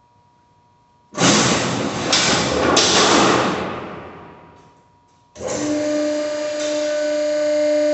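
Harmony vertical downstroke hydraulic baler running. A loud rushing noise rises sharply about a second in and fades out over about three seconds. Then, about five seconds in, the machine starts abruptly and runs with a steady hum.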